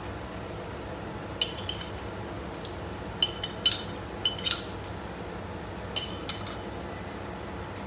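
A small glass bowl clinking against a cooking pot as garlic is tipped into boiling water: about eight sharp, ringing clinks in four pairs, over a steady hiss.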